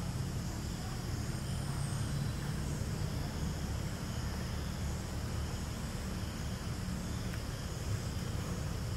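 Steady outdoor background noise: a continuous low rumble with an even hiss above it, with no distinct calls or knocks.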